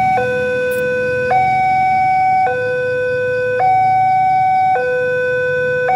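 Railway level-crossing warning alarm sounding: a loud electronic two-tone signal that alternates between a lower and a higher pitch, switching roughly once a second. It warns that a train is approaching and the barrier is coming down.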